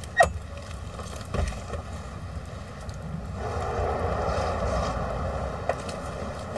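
A front door's latch clicking sharply, followed by a knock as the door is opened, over a steady low rumble of street noise. A hiss swells up about halfway through and fades a few seconds later.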